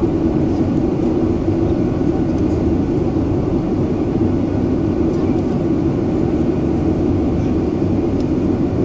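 Steady cabin drone of a Boeing 737-900ER heard from a passenger seat, an even, low hum with no change in pitch or loudness.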